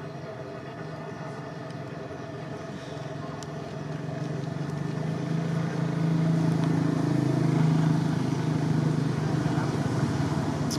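A low, steady engine hum that grows louder about halfway through.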